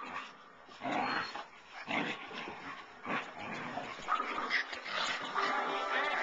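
A husky puppy and a Samoyed play-fighting, with short, irregular bursts of dog noises that include higher-pitched yips.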